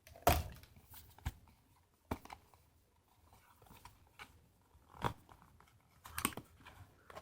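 Cardboard packaging being handled and pulled open: scattered rustles, taps and short scrapes with quiet gaps between them.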